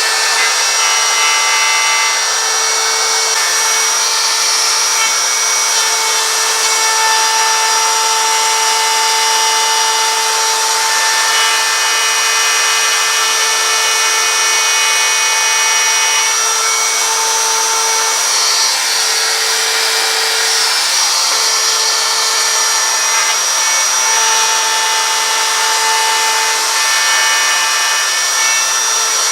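Router with a profile bit carving letters into a wooden sign: the motor runs with a steady high whine while the bit cuts the wood, the whine dipping briefly a few times in the second half as the load changes.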